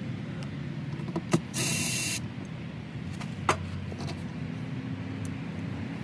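DeWalt brushless cordless drill/driver running in one short whirring burst about two seconds in, driving out a screw from an RV door latch, with a few sharp clicks of metal parts being handled and a low steady hum underneath.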